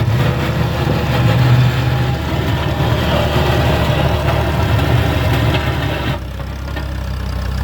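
An engine running steadily, with a strong low hum; it drops somewhat in level about six seconds in.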